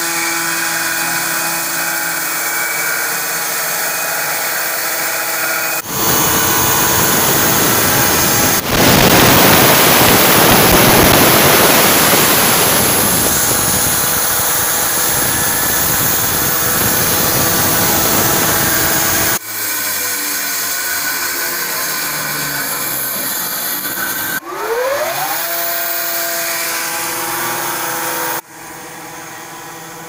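Horizontal band sawmill running: its motor and band blade hum steadily, then the blade cuts through a log with a loud dense hissing noise for about ten seconds. About two-thirds through, a rising whine comes as the machine speeds up.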